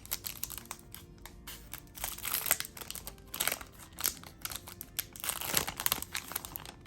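Crinkling of a foil Yu-Gi-Oh Maximum Gold booster pack wrapper as it is handled and opened, in a run of irregular crackles that grows busier after about two seconds.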